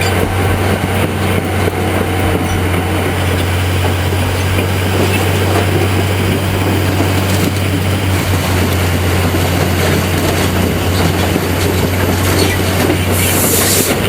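Caterpillar D11T bulldozer's V12 diesel running with a steady low drone as the crawler moves on its steel tracks, with a brief hiss near the end.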